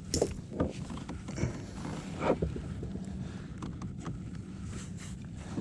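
Scattered small knocks and water splashes from a caught redfish being handled and let go beside a kayak, over a low steady background.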